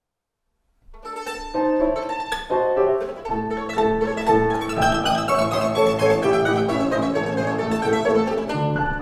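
Two violins with piano accompaniment begin playing about a second in: quick, light separate notes at first, then a fuller, steadier texture.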